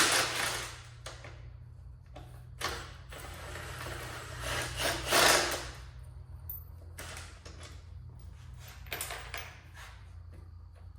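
Scraping and rubbing noises of hand work on a motorcycle's turn signals, in several bursts about a second long, over a steady low hum.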